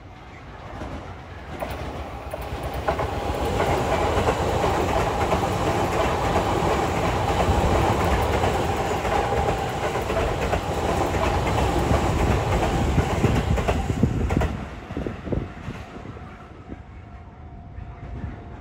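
Sotetsu Main Line electric commuter train passing by, with wheels clacking over the rails. It builds up over the first few seconds, stays loud for about ten seconds, then drops away about fourteen seconds in with a few last clicks.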